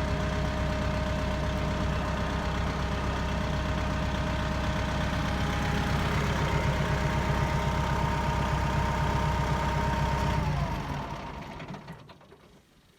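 Tractor engine running steadily. About ten seconds in it winds down and dies away.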